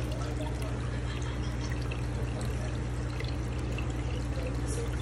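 Aquarium filter running: water steadily pouring and trickling into the tank over a low, constant hum.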